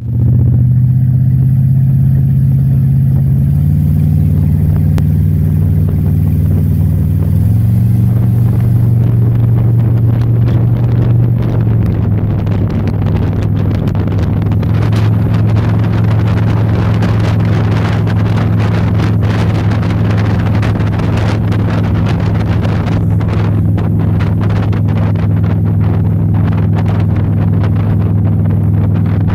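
Motorboat engine running steadily under load while towing, a low drone whose pitch shifts a couple of times in the first eight seconds and then holds. Rushing water and wind noise grow over it from about eight seconds in.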